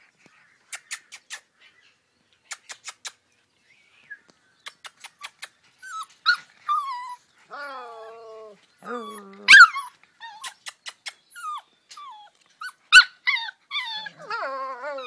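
A few runs of sharp clicks, then husky puppies yipping and howling with whines that rise and fall in pitch, the loudest yelps about two-thirds of the way through and again near the end.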